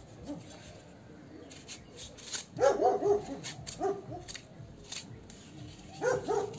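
A dog barking in short bouts: a quick run of barks a few seconds in, a single bark shortly after, and another run near the end. Light sharp taps and clicks sound between the barks.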